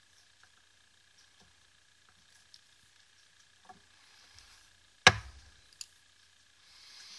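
Small hand tools handled at a workbench during soldering: faint taps and ticks, one sharp click about five seconds in with a lighter one just after, then a short soft hiss near the end, over a faint steady high whine.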